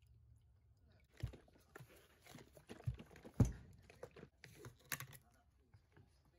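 Plastic bottles and jugs of cleaning liquid handled with gloved hands on a workbench: an irregular run of knocks and crinkling plastic, the loudest knock about three and a half seconds in.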